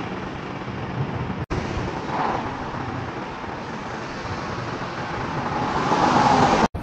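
Road traffic noise from a nearby road, with a car passing that swells to its loudest near the end.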